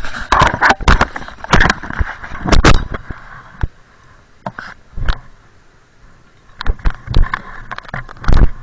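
Snowboarder moving through deep snow: a run of sharp crunches and knocks with scraping, thick for the first three seconds, thinning to a few single knocks in the middle, and thick again near the end.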